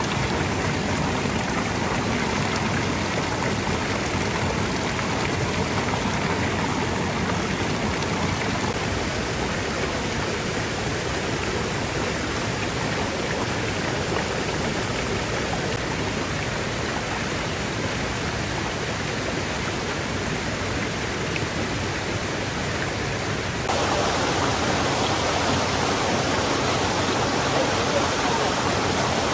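Steady rushing water noise from heavy rain and a waterfall. About 24 seconds in it changes abruptly and becomes a little louder and fuller.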